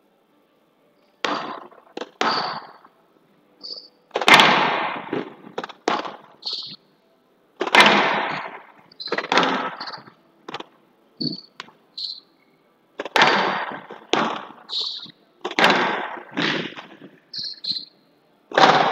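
Squash rally on a glass court: the ball cracking off rackets and walls at an irregular pace, each hit ringing with a reverberant tail. Short high squeaks of court shoes come between the hits.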